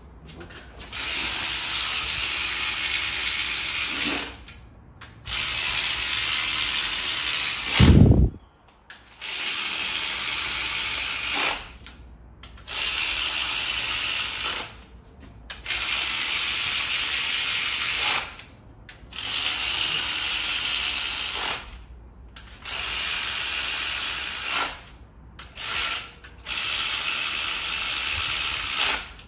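Cordless power ratchet running cylinder head bolts down to zero lash, in about nine runs of two to three seconds, one bolt at a time, with short pauses between. A single sharp thump about eight seconds in.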